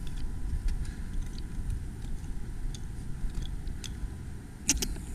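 Footsteps and small twig snaps on a woodland trail over a steady low rumble, with scattered light clicks and two sharp clicks close together near the end.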